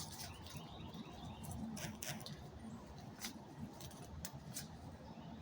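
Short, faint bird chirps, scattered and irregular, over a low steady rumble.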